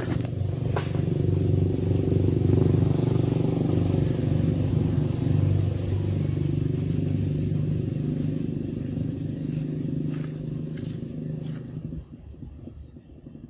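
A motor engine running steadily with a low hum, dropping away sharply about twelve seconds in. A few short bird chirps sound over it.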